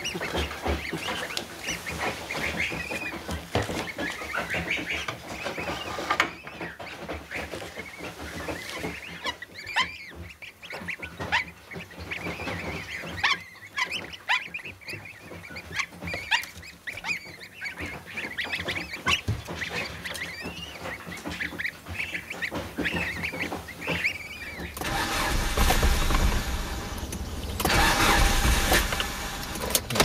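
Goslings peeping in a brooder: many short, high calls that rise and fall, with small scattered clicks and scratches. About 25 seconds in it cuts to a car running, heard from inside the cabin as a steady low rumble.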